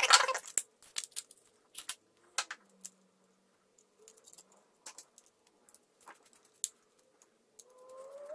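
Small parts of a 1/64 scale New Holland combine model clicking and clattering as they are handled and fitted back together, with a burst of clatter at the start and scattered light taps after it. A faint squeak rises near the end.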